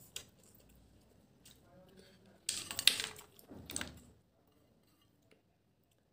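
Snail curry tipped out of a steel bowl onto a plate of rice: a burst of clicking and sliding as the snails and sauce pour out, lasting about a second and a half. Before it, soft sounds of a hand mixing rice.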